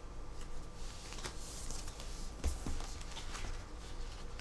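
Photocards being handled and flipped through by hand: faint clicks and paper rustling, with a soft thump about halfway through as an album case is set down on the pile.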